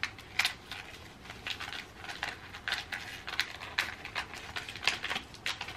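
A small wrapped package being opened by hand: irregular crinkling and rustling of the wrapping, many short crackles close together.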